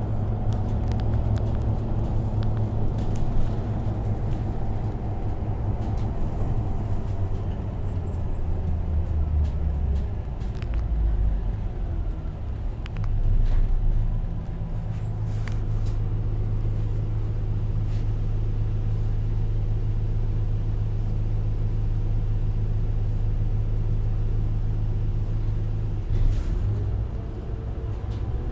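Diesel engine running steadily with a low, even hum. The rumble swells briefly about halfway through.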